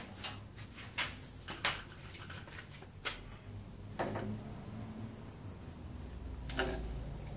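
A few separate knocks and clicks of wood and a corded drill being handled: a plywood straightedge laid on a board and the drill set in place against it.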